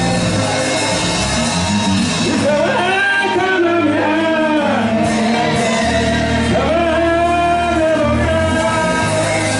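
Live gospel praise music: a band with a steady bass line under singers amplified through the church sound system. From about two seconds in, a lead voice holds long sung phrases that slide up and down in pitch.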